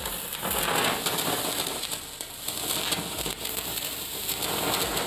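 A hand-held pencil firework burning: a steady hissing spray of sparks with a dense crackle running through it.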